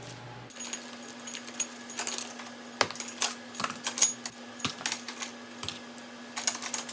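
Metal kitchen tongs clicking against a wire rack and stainless steel bowl as baked chicken wings are lifted off and dropped in: a string of irregular light metallic clicks and clinks, over a faint steady hum.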